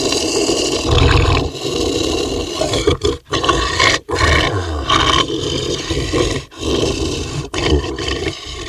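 Dog growling and breathing roughly, in long snarling stretches broken by brief pauses.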